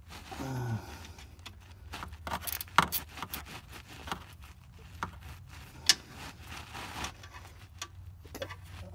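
Metal clicks and scrapes of a short 14 mm ratchet wrench and socket working a bolt under a golf cart engine's oil pan. The clicks are scattered, a few loud ones about a second apart, and there is a brief low falling tone just after the start.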